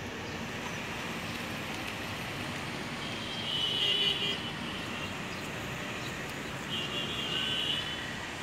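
Steady hum of road traffic below, with two vehicle horn honks of about a second each, one near the middle and one about three-quarters of the way through.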